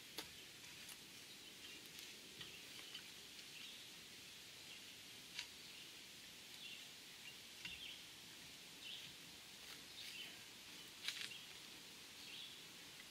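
Near-quiet, with a series of faint, scattered clicks and ticks from a tree-stand platform's strap and metal cam buckle being handled and wrapped around a tree trunk.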